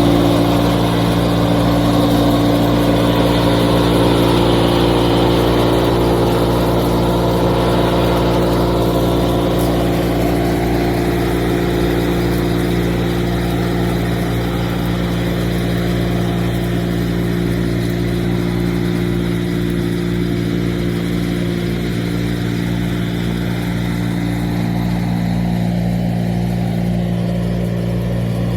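Large engine running steadily at an even speed, a little louder and brighter in the first several seconds.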